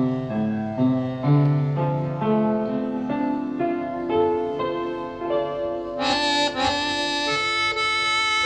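Background music: an instrumental melody of held, pitched notes that change about twice a second, growing brighter about six seconds in.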